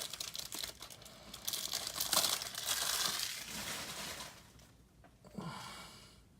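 Plastic trading-card wrappers crinkling and rustling as they are handled, in uneven bursts that die down about four seconds in, with one brief softer rustle after.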